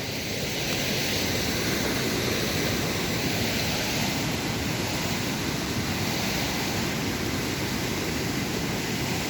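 Steady, even rush of fast-flowing water from a burn running in spate, with its small waterfalls.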